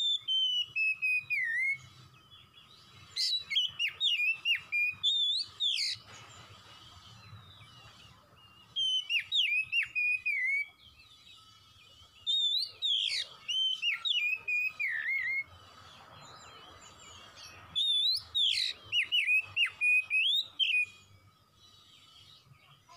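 Oriental magpie-robin (kacer) singing: five bouts of loud, varied whistled phrases made of quick rising and falling notes, separated by short pauses, over a faint steady hum.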